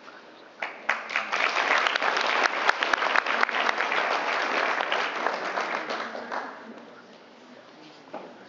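Audience applauding, starting about half a second in and dying away about six seconds in.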